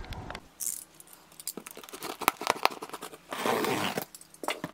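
Packaging being handled: crinkling plastic and cardboard with scattered clicks and taps, and a longer rustle about three and a half seconds in.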